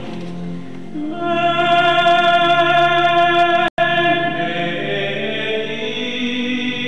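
Church music during Mass: one long steady note held for about three seconds, then several notes sounding together. The sound cuts out for an instant just past the middle.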